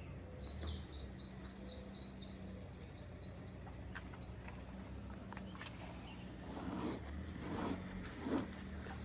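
A small bird repeating a high chip about four or five times a second for the first few seconds, over a faint steady low hum. Near the end come three short scraping sounds, the last the loudest.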